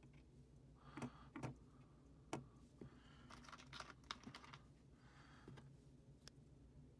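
Light, scattered clicks and taps of small aluminium heatsinks and parts being handled and set down on a wooden table: a few single taps, then a quick cluster of clicks near the middle.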